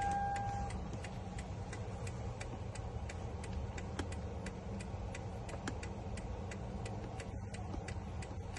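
A short electronic beep, then steady regular clicking, about three clicks a second, over a low hum.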